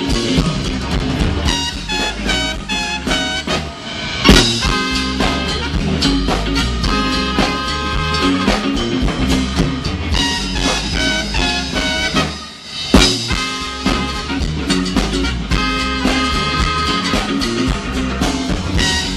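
Live band playing an upbeat instrumental passage in a swing/jazz vein, with drum kit. There is a loud accented hit about four seconds in and another about two-thirds of the way through, right after a brief drop in level.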